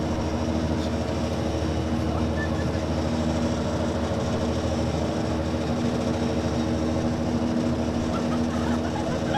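Small boat's engine running steadily under way, with the rush of water from its wake.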